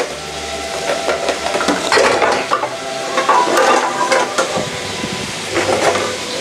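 Nile perch fillets sizzling steadily as they fry in oil, with a dense crackle throughout.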